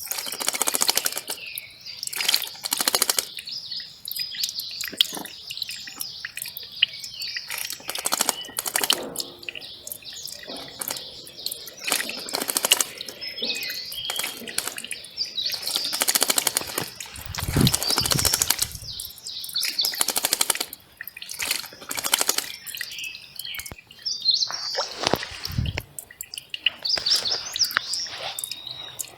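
Small birds chirping and calling repeatedly over the steady rush of a mountain stream. Two brief low rumbles come in, one past the middle and one near the end.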